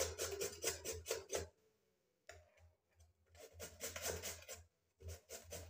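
Hand grater rasping through raw vegetables for kuku batter in quick repeated strokes, pausing briefly twice.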